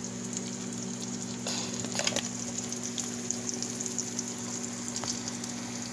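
Tilapia fillets frying in hot oil in a pan: a steady sizzle with scattered crackles and pops, a few louder about two seconds in. A steady low hum runs underneath.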